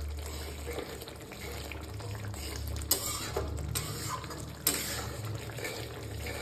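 Wet spice masala sizzling and bubbling in oil in a metal kadhai as a metal spatula stirs and scrapes it, with two sharp taps of the spatula on the pan, about three seconds in and again near five seconds.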